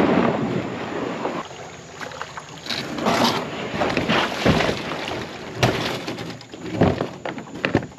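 Plastic hull of a Crescent fishing kayak dragged along a dirt trail and onto rocks at the creek edge: a dense, loud scraping that thins out after a second or so, then several separate scrapes and knocks in the second half.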